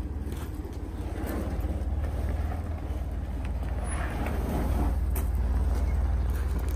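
Off-road vehicle driving on a trail: a steady low engine drone with road noise and a few light knocks.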